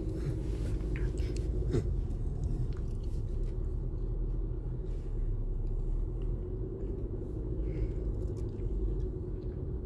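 Steady low rumble of a car's engine and tyres on the road, heard from inside the cabin while driving slowly, with a few faint clicks in the first two seconds.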